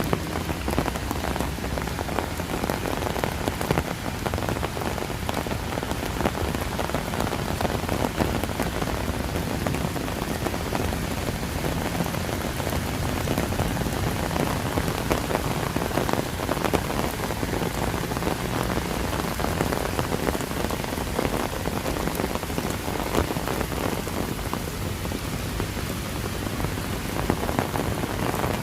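Steady heavy rain, a dense patter of many separate drops striking close by, holding steady throughout.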